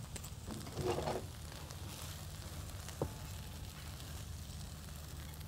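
Faint spatula stirring of cooked sago-pearl khichuri in a wok, over a steady low hum, with one sharp click about three seconds in.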